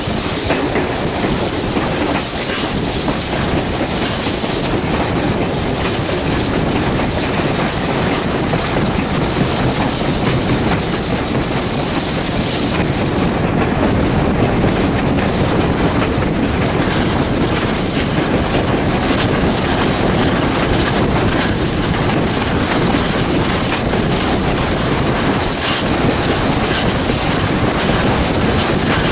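Steam-hauled passenger train behind locomotive 621 running steadily, its wheels clattering over the rail joints.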